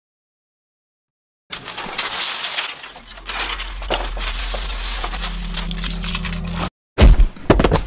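Gritty crunching and crackling full of small clicks, with a low steady drone joining about halfway through. It cuts off abruptly and is followed by a sudden, very loud crash near the end.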